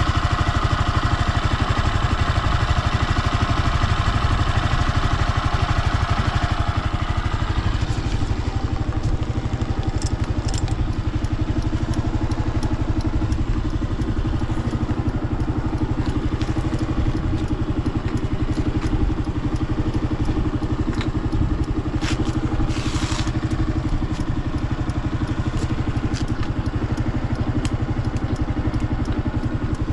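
Honda PS250 scooter's single-cylinder four-stroke engine idling steadily, a little brighter and busier for the first seven seconds or so before settling. It is running with no abnormal noise.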